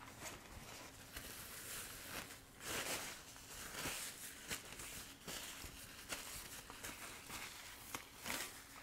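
Quiet eating sounds: soft chewing and the light rustle of paper food wrappers and a napkin being handled, with a few brief crinkles.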